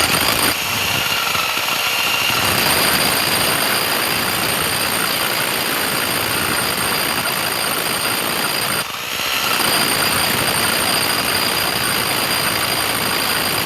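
Electric power tool running continuously under load, a harsh noise with a steady high whine; it eases off briefly about nine seconds in and picks up again.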